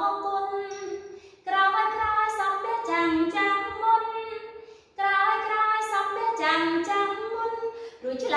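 A woman singing a slow Khmer song unaccompanied, in three long, held phrases separated by short breaths.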